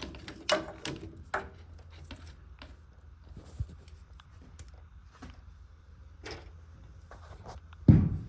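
Scattered knocks and clicks of hand tools and parts being handled while working a fitting loose, over a steady low hum, with one loud thump near the end.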